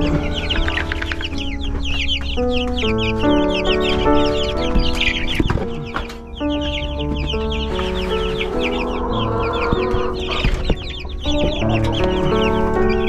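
Chickens clucking and calling, many short quick calls, over background music.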